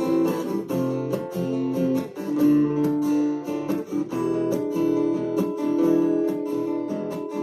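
Instrumental music led by strummed acoustic guitar with held notes: the song's closing bars after the last chorus, with no singing.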